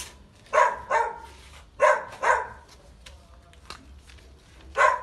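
A dog barking, four short single barks: two spaced about a second apart near the start, a quick pair in the middle and one more near the end. Faint knocks sound in between.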